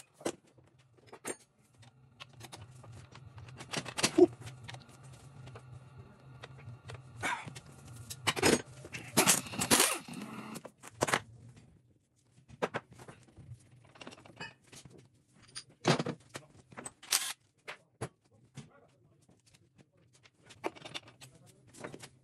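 Metal tools and loose engine parts clinking and clanking during engine disassembly: scattered clicks and knocks, a few louder ones in the first half, over a faint low hum that stops about halfway through.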